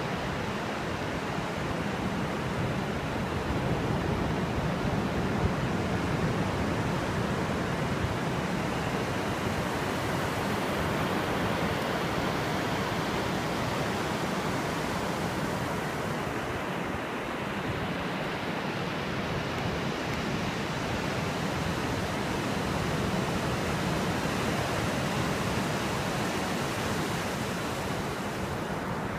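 Surf washing on a sandy beach: a steady, even rushing noise.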